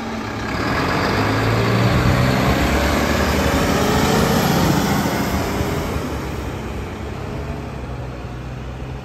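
Mack rear-loading garbage truck's diesel engine pulling away and driving past, growing louder over the first couple of seconds and fading as it moves off down the street.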